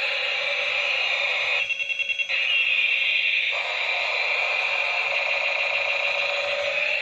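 Battery-operated toy attack helicopter playing its electronic siren sound effect, a tone gliding up and down. About two seconds in, it breaks briefly into a burst of rapid pulses before the siren picks up again.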